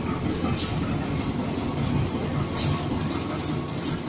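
CC 201 diesel-electric locomotive (GE U18C type) running light on a shunting move, its diesel engine giving a steady low rumble. Brief sharp high-pitched clicks come now and then.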